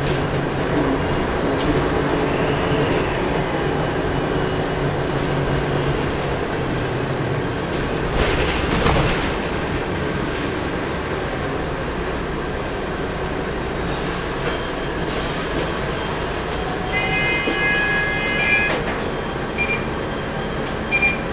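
Volvo B10M bus's turbocharged diesel engine running under way, heard onboard, with a steady turbo whistle over the engine and road noise. A loud rattle about eight seconds in, and a short high ringing tone a few seconds before the end.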